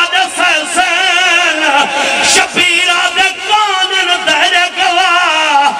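A male zakir chanting a mournful majlis recitation into microphones, his voice held in long, wavering, ornamented melodic lines.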